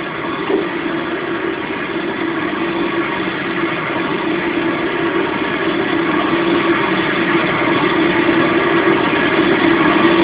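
Steady engine noise with a constant low hum, slowly growing louder.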